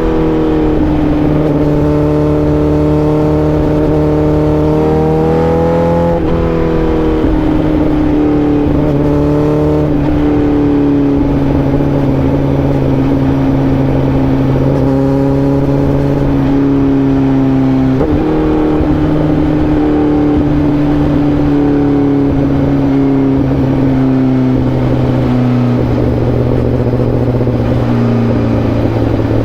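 Honda CBR1000RR-R SP inline-four motorcycle engine running under way. Its pitch climbs for the first few seconds and drops sharply about six seconds in, then runs on with a slowly falling pitch.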